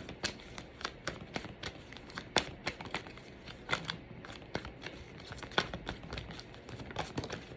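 Tarot cards being shuffled and handled by hand: a quick, irregular run of card snaps and flicks.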